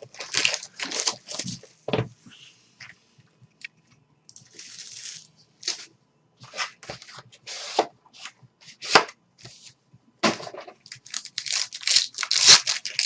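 Plastic wrapping and cardboard packaging of a trading-card box being torn and crinkled by hand in short, irregular bursts, busiest near the end.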